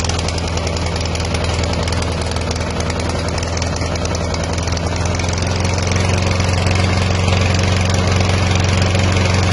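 Briggs & Stratton 675 Series single-cylinder engine on a walk-behind lawn mower, running steadily and getting a little louder about halfway through.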